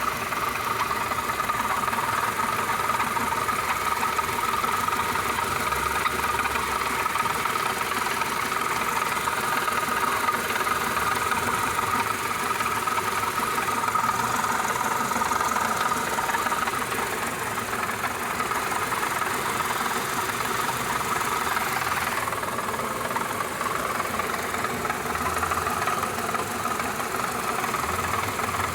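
Renault Duster engine running steadily with a strange noise, which the owner suspects comes from a drive belt. The sound shifts suddenly about three-quarters of the way through.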